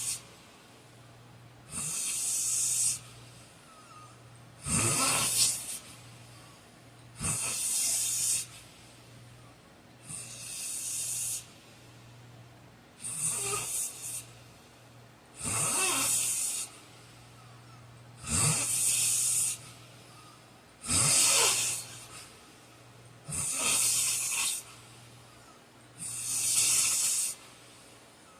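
A man snoring in a steady rhythm, one raspy snore about every two and a half seconds, each lasting about a second, with quiet gaps between. A steady low hum runs underneath.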